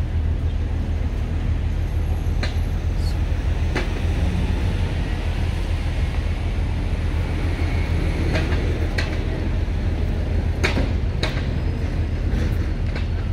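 Busy city-square street ambience: a steady low rumble of traffic, with a few short sharp clicks scattered through.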